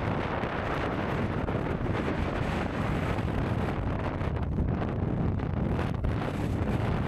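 Strong wind blowing across the action camera's microphone: a continuous, gusty rumble with hiss.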